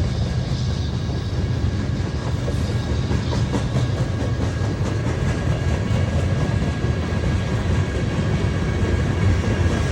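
BNSF freight train rolling past, its cars making a steady, loud rumble on the rails with a few faint clicks of the wheels.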